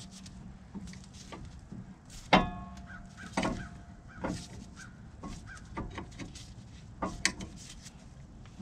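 Scattered metal clicks and knocks from a 6-inch C-clamp being worked to push a front brake caliper piston back in. The loudest is a sharp knock about two seconds in that rings on briefly. The piston is stiff to push back and may be a little stuck.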